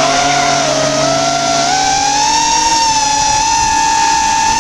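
FPV racing drone's electric motors and propellers whining, heard from the camera on the drone itself. The pitch rises over the first two seconds as it climbs, then holds steady.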